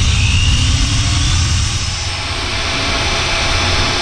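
Antique Milwaukee electric drill running under heavy feed pressure, its 9/16-inch bit partway through cargo container steel: a steady motor drone with a gritty cutting hiss, and a brief high whine in the first half second.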